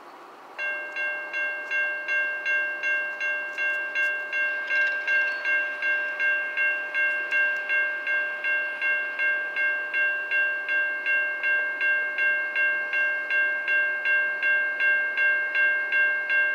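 Railroad grade-crossing warning bell ringing in quick, even strokes, about three a second. It starts about half a second in, as the crossing signals activate for the approaching train.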